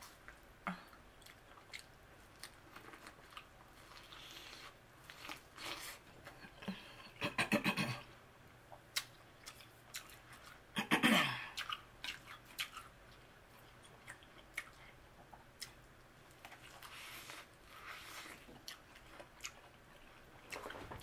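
Corn on the cob being bitten and chewed close to the microphone: kernels crunch and pop off the cob amid wet chewing. It comes in short bursts, loudest about seven to eight seconds in and again around eleven seconds.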